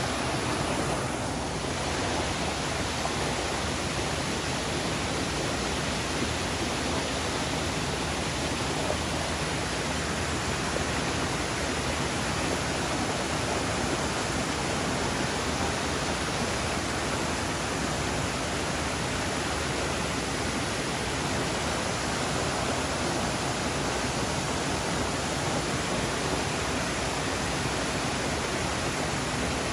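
Waterfall crashing onto rocks: a steady, unbroken rush of falling water.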